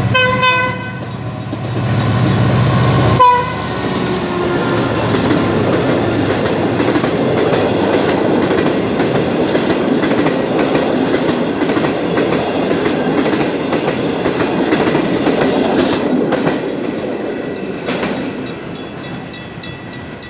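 A passenger train's locomotive horn sounds twice, briefly at the start and louder about three seconds in. The coaches then roll past with steady wheel-on-rail noise and clicks over the rail joints, fading near the end.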